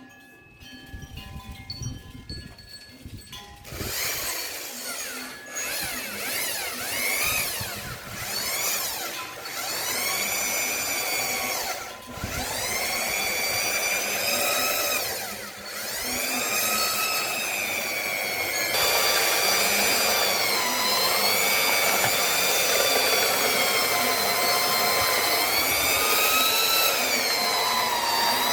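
A small motor running and repeatedly speeding up and slowing down, its whine rising and falling every few seconds, then holding a steadier, slightly wavering pitch for the last third.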